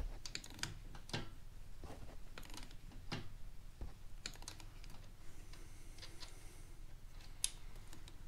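Irregular light metal clicks and ticks from a ratcheting digital torque wrench being worked on the clutch center nut of a 2022 Honda Grom engine, with one sharper click near the end.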